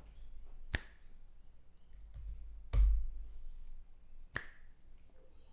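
Three sharp clicks from a computer keyboard, spaced about one and a half to two seconds apart; the middle one is the loudest and carries a low thump.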